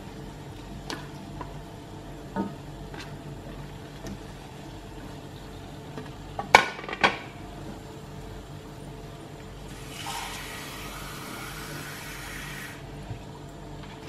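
Raw chicken pieces and a plastic plate knocking against a metal wok of simmering spice broth, the two loudest knocks about six and a half and seven seconds in. About ten seconds in comes roughly three seconds of running water.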